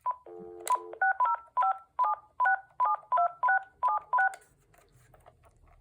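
Cordless phone handset picking up the line, with a short key beep and then dial tone. About a second in, a quick run of about a dozen touch-tone (DTMF) beeps follows as a phone number is keyed in.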